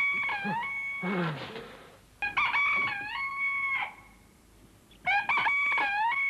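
A rooster crowing three times. Each crow dips in pitch and then levels off into a long steady note. The first crow is already under way at the start, the second comes about two seconds in, and the third runs on past the end.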